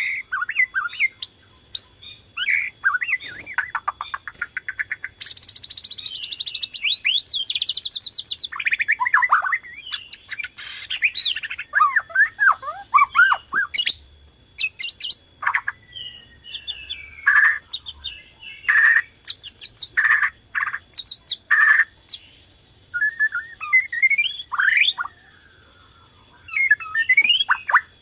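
Borneo white-rumped shama singing a long, varied song of whistled phrases, a fast high trill and runs of short, sharp rattling notes, with only brief pauses.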